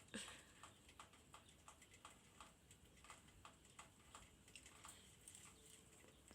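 Near silence with faint, even ticking, about three ticks a second.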